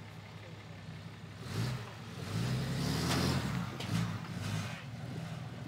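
Lifted Ram heavy-duty diesel pickup on 44-inch tyres pulling away slowly. Its engine hum grows louder as it accelerates about a second and a half in, holds for a couple of seconds, then eases off.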